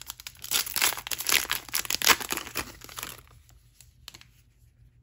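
Trading card pack wrapper crinkling and tearing as it is opened, a dense crackle for about three seconds that then drops to a few faint clicks.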